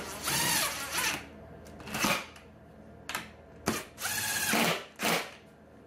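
DeWalt 20-volt cordless impact driver run in about six short trigger pulls, a fraction of a second to nearly a second each, its motor pitch rising and falling with each pull. It is driving bolts that fasten a hip-restraint bracket to a golf-cart seat base.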